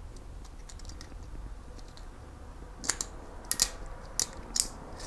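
Plastic T8 lamp sockets being handled and snapped into the retrofit kit's sheet-metal bracket: a run of about six sharp clicks in the last two seconds.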